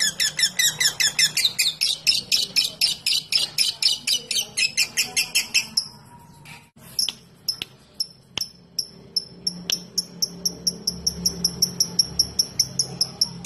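Lovebird chattering in a long, fast run of repeated high chirps, the 'ngekek' song, which stops about six seconds in. After a few clicks, an even, cricket-like chirping of very high short ticks, a few a second, takes over.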